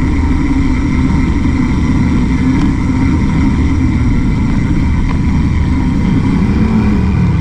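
Steady low rumble of wind and rolling noise on a bicycle-mounted camera as a mountain bike rides along a sidewalk beside a busy road, with road traffic mixed in.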